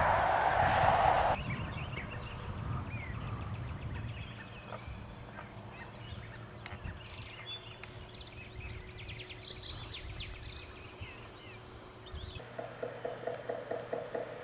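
A burst of rushing noise cuts off suddenly about a second in, followed by a mix of wild birds chirping and trilling. Near the end a rapid run of lower pulsed bird calls starts.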